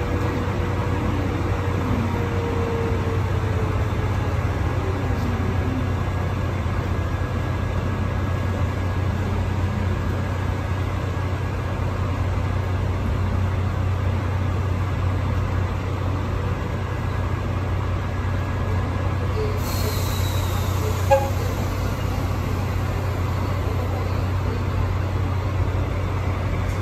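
DD51 diesel-hydraulic locomotive idling while standing, its twin V12 diesel engines giving a steady low hum. A single sharp click sounds about twenty seconds in.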